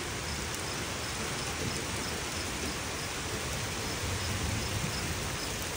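Heavy rain pouring down steadily, with a low thunder rumble swelling slightly about four seconds in.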